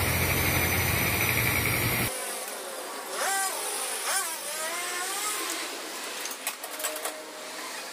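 Motor oil pouring from a one-litre bottle through a plastic funnel into a car engine's oil filler, over steady workshop noise. The background drops away abruptly about two seconds in, and a few light clicks come near the end.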